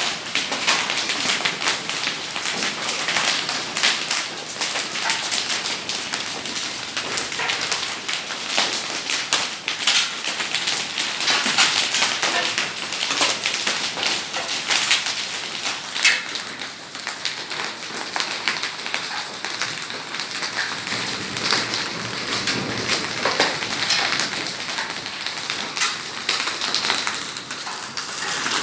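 Heavy rain falling steadily, with many sharp drop impacts close by throughout.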